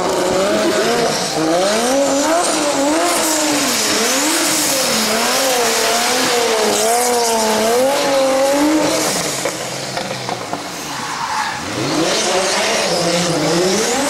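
Drift car engine revving up and down quickly as the throttle is worked through a slide, with tyre squeal. It falls away around ten seconds in, then another car's engine revs up near the end.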